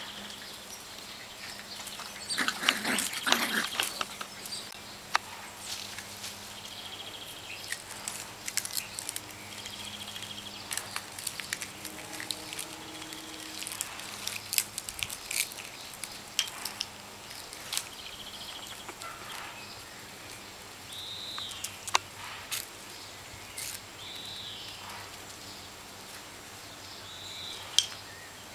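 Nine-week-old Cavalon puppies play-fighting on grass: scuffling and rustling with scattered sharp little clicks and short high squeaks, and a louder scuffle about two to four seconds in.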